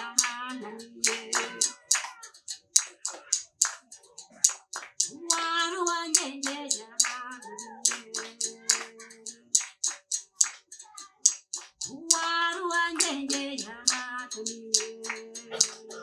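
A voice singing a song in phrases to the umuduri, a Rwandan musical bow with a gourd resonator, whose string is struck in a steady run of sharp strikes, about two to three a second. The strikes carry on through the pauses between the sung lines.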